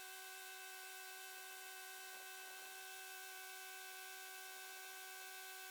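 Case 580B backhoe running, heard as a steady high whine that holds one pitch, with a few faint scrapes about two seconds in.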